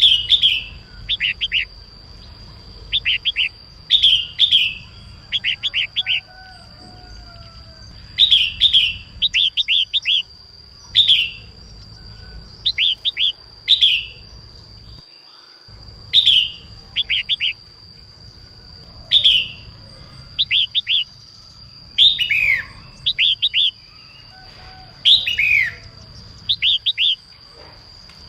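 Female red-whiskered bulbul singing: short bursts of two to five quick, falling chirps, repeated every second or two. A steady thin high tone runs underneath.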